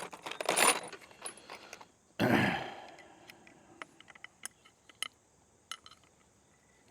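Small metal parts of kayak landing gear clinking and rattling as they are handled and fitted: two louder clattering rattles in the first three seconds, then scattered light clicks.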